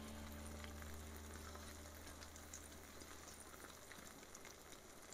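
Faint sizzling of food frying in a pan, with scattered small crackles.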